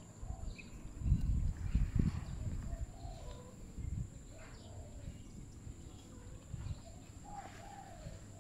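A dove cooing outdoors, short low calls repeating several times. Low rumbling thumps from wind or handling on the microphone are loudest about a second or two in.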